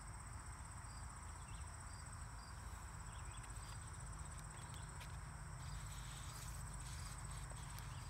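Faint, steady high-pitched insect trill, with a fainter chirp pulsing at a regular pace beneath it. A few soft clicks and rustles of book pages being handled come in the second half.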